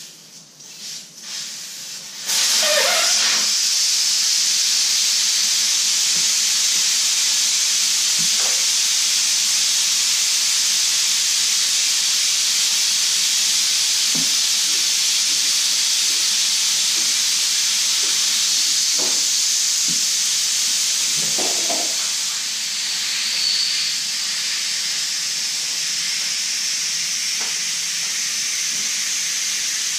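Steady loud hiss of air escaping from a tire through its open valve stem as the tire is let down for removal, starting about two seconds in. A few light knocks of handling sound over it.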